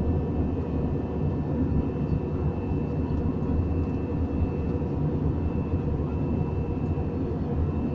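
Airliner cabin noise in flight: a steady, deep drone of engines and airflow, with a faint steady whine on top.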